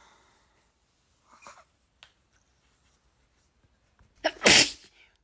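A girl sneezes once, loudly, about four seconds in, with a short sharp catch of breath just before the main burst. Before it there are only a faint breath and a small click.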